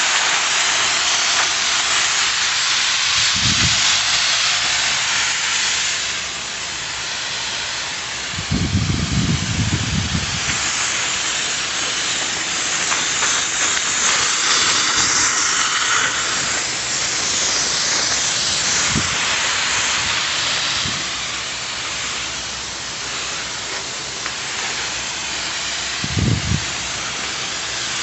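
Water spray hissing steadily from a sprayer nozzle, its strength rising and falling, with a few brief low bumps.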